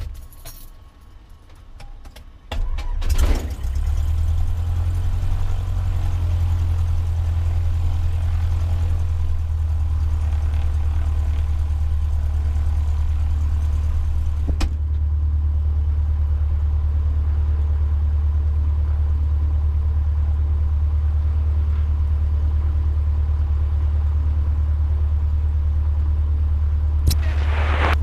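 Cessna 150's four-cylinder Continental O-200 aircraft engine being started: after a brief crank it catches about two and a half seconds in, then idles steadily with a deep, even drone. A sharp click sounds near the end.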